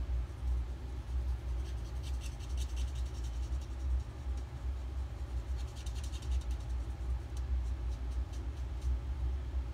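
Stampin' Blends alcohol marker tip scratching on paper in quick short colouring strokes: one spell about two seconds in, another about six seconds in, and a few lighter strokes after. Under it runs the steady low rumble of a house furnace.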